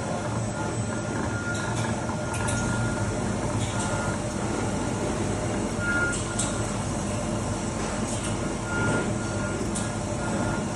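Laser glass-cutting machine running with a steady mechanical hum. A high beep-like tone switches on and off in short stretches, and a few sharp clicks sound.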